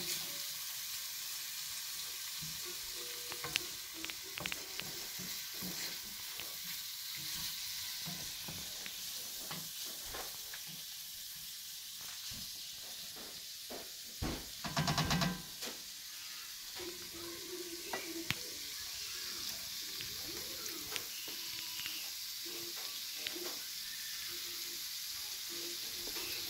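Onions, tomatoes and ground spices sizzling as they fry in oil in a sauté pan, with a wooden spatula scraping and stirring through the mix. About fourteen seconds in, a louder rattling scrape lasts for about a second.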